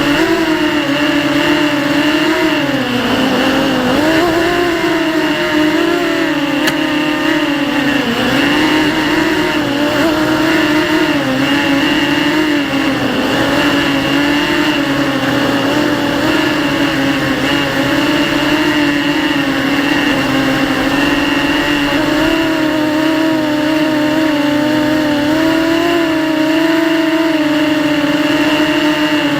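250-size racing quadcopter's brushless motors and propellers whining in flight. The pitch wavers up and down with throttle and dips briefly a few times.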